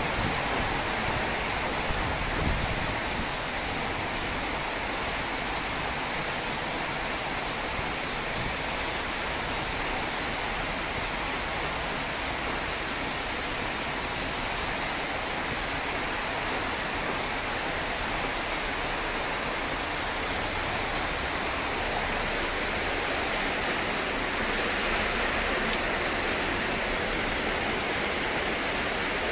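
Heavy storm rain pouring down, a steady dense hiss that grows slightly louder near the end.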